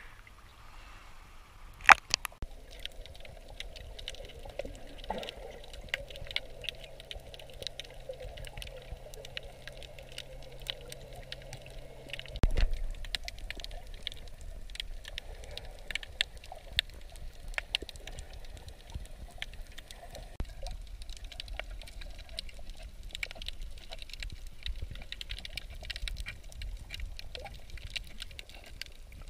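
Water heard through a snorkeler's camera, mostly underwater: a steady crackle of small clicks. There is a sharp knock about two seconds in and a heavier, deeper thump about twelve seconds in.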